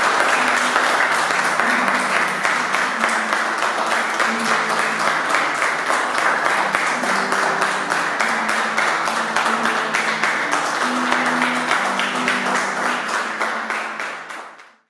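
A small audience clapping hands together, with music playing quietly underneath. The clapping fades out near the end.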